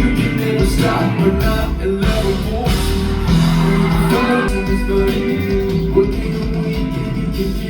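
A pop song played live through a concert hall's PA: a voice singing over guitar and a steady low beat, recorded from the audience.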